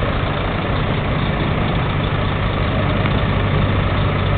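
Heavy truck's diesel engine running steadily at low revs, a deep even drone.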